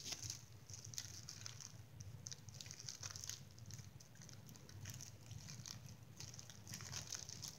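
Faint chewing of a Rice Krispie treat: soft irregular mouth clicks and crackles over a steady low hum.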